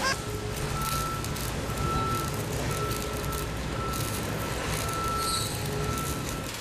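A vehicle's reversing alarm beeping steadily, about once a second, over the steady low rumble of an engine.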